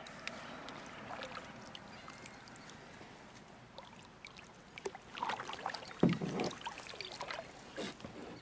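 Plastic fishing kayak on calm water: faint water lapping, then from about five seconds in a run of small clicks and knocks against the hull, with one louder hollow thump around six seconds.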